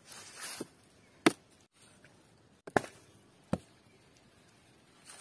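A wooden stake being hammered crosswise through a row of peeled banana stems to pin them together as a raft: a brief rustle, then three sharp, separate knocks.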